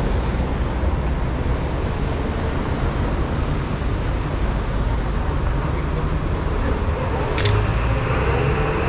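Steady downtown street traffic with a low rumble of passing vehicles. About seven seconds in comes a single sharp click from the Sony A7R2's shutter.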